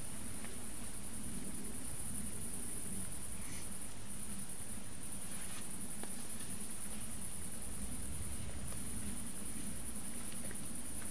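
Crickets chirring in a steady high-pitched chorus, with a low even rumble underneath.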